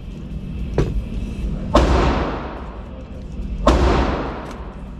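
Gunshots echoing in an indoor shooting range: two loud shots about two seconds apart, each with a long echoing decay. There are fainter sharp cracks about a second in and near the end.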